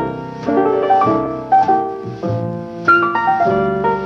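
Background music led by piano, a stream of quick notes one after another.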